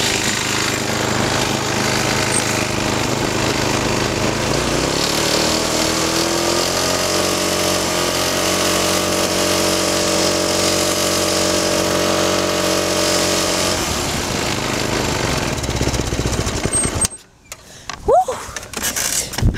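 Small single-cylinder lawn mower engine driving a go-kart, running steadily under wind and road rumble. Its pitch rises a few seconds in as it speeds up, then holds. The engine note fades out near the end, and the sound drops away suddenly to a few knocks.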